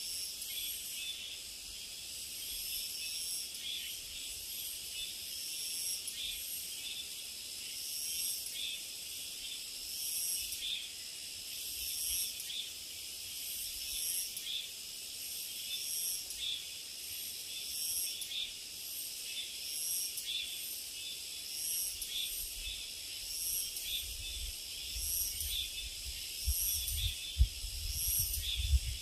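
A chorus of cicadas chirring high and continuously, swelling in regular pulses about every second or so. Near the end a low rumble and a few bumps come in underneath.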